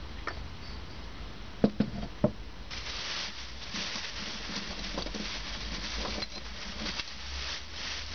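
Three sharp knocks close together, then a thin plastic bag rustling and crinkling steadily as it is handled.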